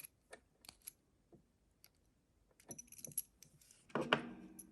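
Faint small metallic clicks and ticks of a thin disc-detainer pick and tension wrench working in the tiny keyway of a Gerda 30mm disc-detainer padlock, growing busier near the middle. A louder metallic clatter with a brief ring comes about four seconds in.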